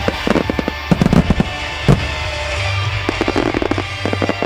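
Aerial firework shells bursting in quick clusters of bangs and crackles, with music accompanying the display.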